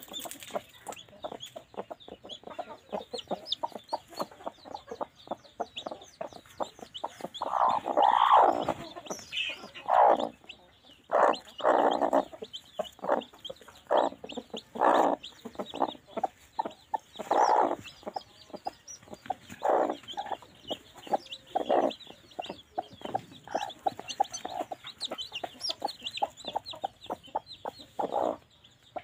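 Hens clucking on a nest of eggs and newly hatched chicks: loud single clucks every second or two, over constant high peeping from the chicks.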